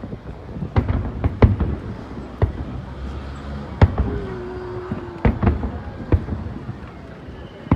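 Aerial fireworks shells bursting: separate sharp booms about a second apart, with a low rumble carrying on between them.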